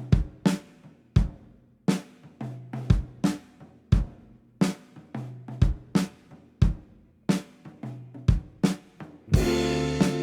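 Background music: a drum kit beat with kick, snare and hi-hat and a sparse bass line, with fuller guitar chords coming in near the end.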